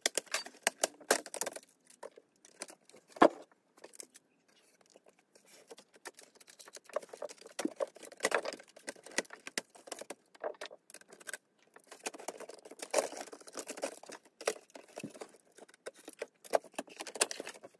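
Irregular plastic clicks, rattles and scraping as an Acer Aspire 8920G laptop is taken apart by hand and its motherboard is worked loose and lifted out of the bottom case. One sharp click about three seconds in is the loudest, with a short lull after it.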